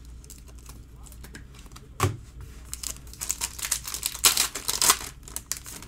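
Trading-card pack wrapper crinkling and tearing as it is ripped open, loudest between about three and five seconds in. A single knock comes about two seconds in.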